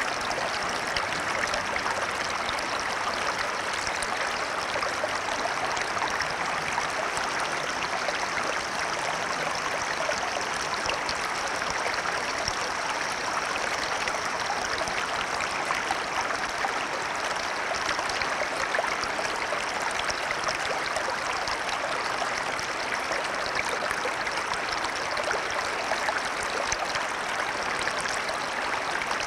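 Shallow section of a small stream, water running and babbling over stones at a steady level, with many small bright splashes and trickles.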